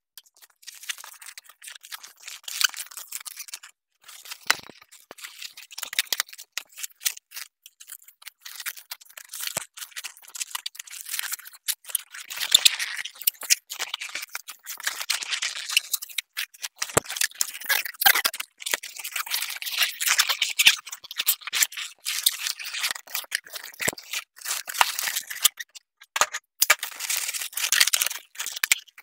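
Hands handling and arranging balloon decorations at close range: irregular rustling, crinkling and small clicks, in quick uneven bursts with short pauses.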